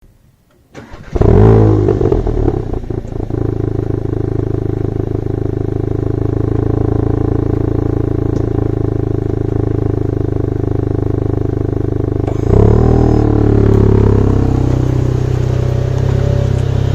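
SEAT León Cupra 290's stock 2.0 TSI turbocharged four-cylinder starting up: a loud flare of revs about a second in that falls back over a couple of seconds to a steady idle. About twelve seconds in the revs rise briefly again, then settle back to idle. The exhaust is the stock one with a petrol particulate filter.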